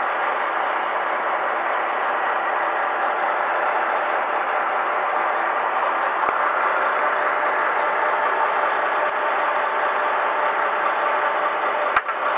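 Fishing boat's engine running steadily at idle, an even mechanical drone, with a single sharp click near the end.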